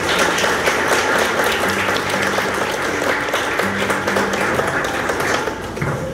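Audience applauding, many hands clapping together; the applause dies away near the end.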